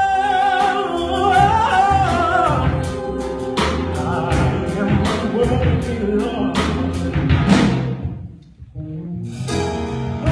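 Musical-theatre song accompaniment between sung lines. A held, wavering high note fades about two and a half seconds in, then a run of sharp percussive hits follows. The music drops away briefly near the end and comes back.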